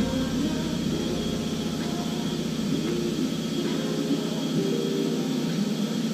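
Heavy machine engine running steadily, its pitch rising and falling a few times.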